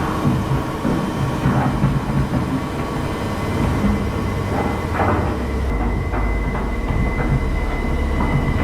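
Washing machine running with a heavy, steady low rumble and irregular rattles and knocks, as heard on a horror film's soundtrack; a faint steady high tone joins about halfway through.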